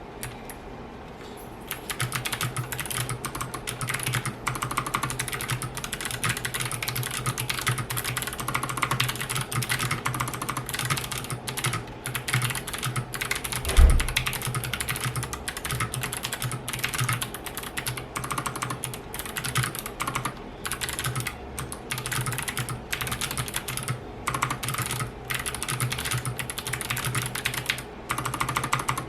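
Typing on a GMMK Compact mechanical keyboard fitted with Kailh Box Jade clicky switches: a fast, steady stream of sharp key clicks starting about two seconds in, with one louder low thump about halfway through.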